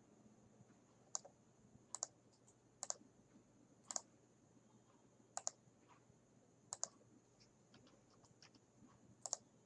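Computer mouse clicks and a few keyboard keystrokes, about a dozen sharp clicks, several in quick pairs, spaced roughly a second apart, against near silence.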